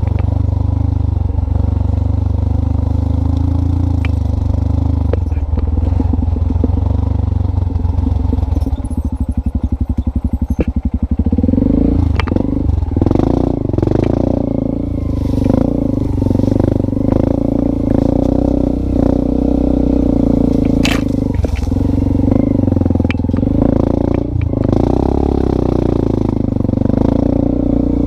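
A motorcycle engine running. About a third of the way in it sinks to a slow putter, then picks up to a steadier note that wavers up and down, with a few sharp knocks and rattles over it.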